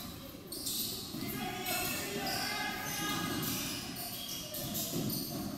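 Basketball game in a large gym: a ball bouncing on the hardwood court and players' footsteps, with voices calling out, all echoing in the hall.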